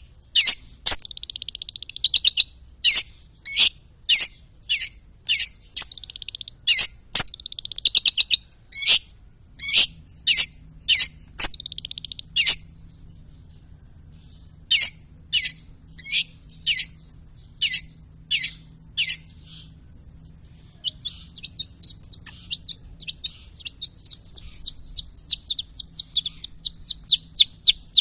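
Long-tailed shrike (pentet) singing: sharp, high-pitched notes repeated about once or twice a second, mixed with short buzzy trills. Near the end it switches to a fast run of short chattering notes.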